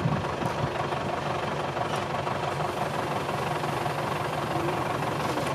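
A heavy engine running steadily at an even speed, a constant low hum.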